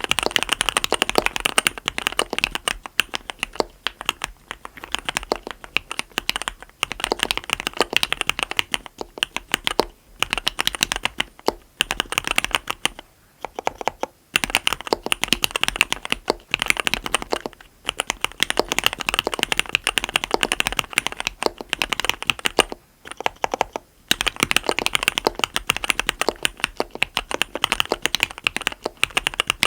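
Continuous typing on a mechanical keyboard with Cherry RGB Black linear switches, 55g progressive SPRiT springs, a SUS304 stainless steel plate and Leopold keycaps: fast runs of keystrokes clacking, broken by short pauses a few times.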